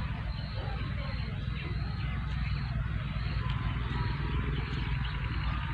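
Outdoor field ambience: a steady, flickering low rumble with an even hiss above it.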